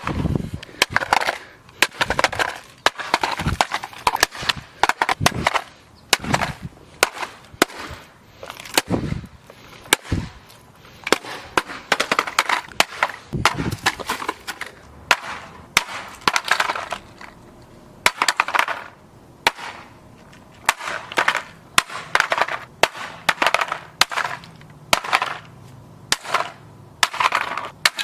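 LeapFrog Fix & Learn Speedy Race Car toy being smashed and broken apart: clusters of sharp cracks and impacts, with crackling of breaking parts, coming irregularly throughout.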